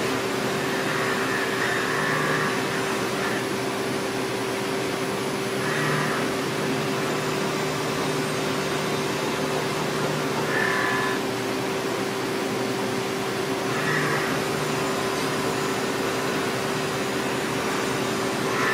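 Ball end mill roughing a Ti-6Al-4V titanium blisk on a 5-axis CNC mill-turn machine: a steady machining hum with a constant mid-pitched tone. A higher-pitched note swells up briefly every four seconds or so as the cut goes on.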